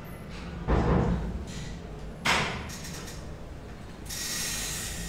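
Handling noise: two short knocks or rubs about a second and a half apart, then a soft hiss near the end.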